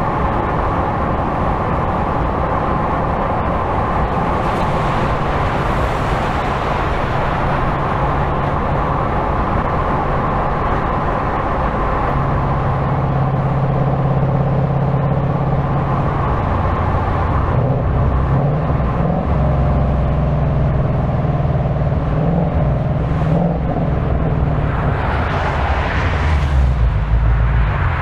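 2025 Ford Mustang GT's 5.0-litre V8 driving on the road with steady tyre and road noise. The engine note holds a steady pitch for a few seconds, then moves up and down several times as the revs change, getting a little louder near the end.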